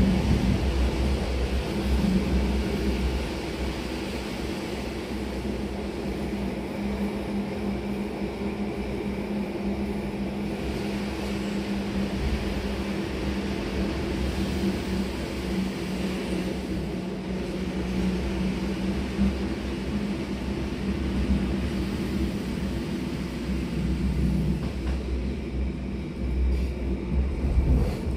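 SNCB classic AM electric multiple unit running, a steady rumble with a humming tone that fades out near the end.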